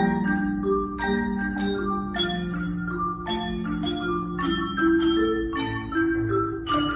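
Marimba played with mallets: a slow piece of held low notes and chords, with new notes struck about once a second.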